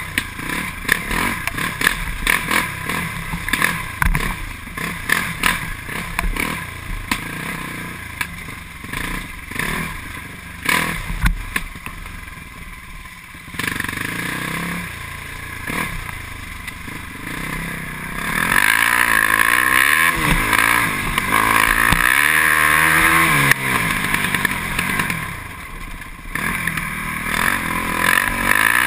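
Can-Am DS450X MX quad's single-cylinder four-stroke engine blipped on and off, with knocks and rattles from the machine over rough trail. About two-thirds in it runs louder and is held at higher revs, rising and falling as it accelerates, and it revs up again near the end.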